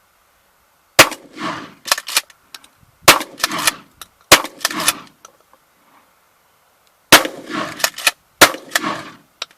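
20-gauge shotgun firing birdshot loads, several sharp blasts spaced a second or more apart, each followed by a rolling echo.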